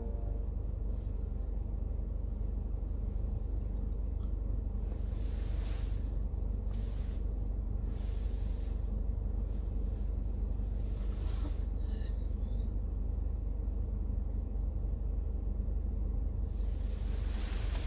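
Steady low rumble, with a few faint rustles.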